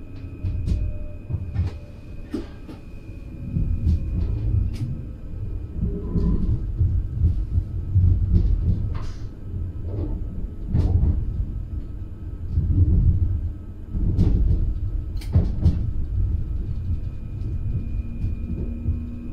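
NS Flirt electric multiple unit running, heard from the driver's cab: a steady low rumble with irregular clanks and knocks, and a thin, steady high whine at the start and again near the end.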